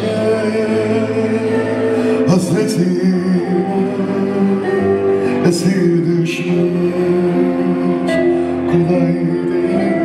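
Live Turkish song: a man singing into a microphone, backed by a band with keyboard and bağlama, amplified over a PA.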